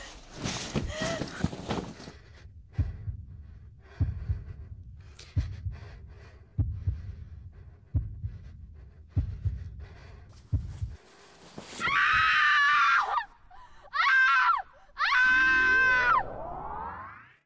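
A horror soundtrack: a noisy rush, then slow low thuds like a heartbeat, about one every second and a quarter. Then a woman screams three times, loudly, with a rising tone sweeping up under the last scream and cutting off abruptly.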